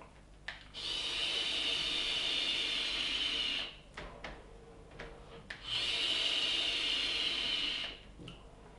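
Two long draws on an Eleaf iStick Pico X sub-ohm vape fitted with a 0.15-ohm coil. Each is a steady hiss of air and vapour pulled through the firing atomizer, the first about three seconds long and the second about two. A few faint clicks come in the pause between them.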